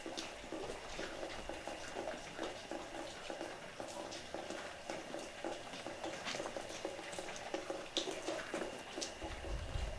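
Footsteps crunching and scraping over plaster debris and litter on a hard floor, an uneven patter of small crackles with a few sharper clicks. A low rumble comes in near the end.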